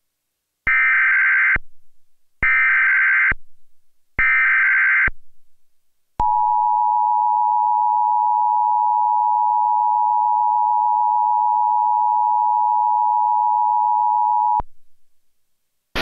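Emergency Alert System tornado warning: three short bursts of the SAME digital header, a harsh data screech, then the steady two-tone EAS attention signal held for about eight seconds before it cuts off.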